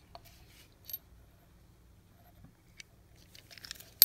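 Faint handling of an air impact wrench's metal parts: a light click about a second in, then soft scraping and small clicks near the end as the air motor assembly is worked out of its housing.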